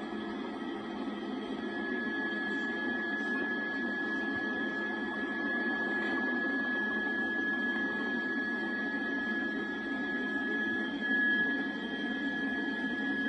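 Steady broadband background noise with a low hum and a thin, constant high-pitched whine; no distinct events.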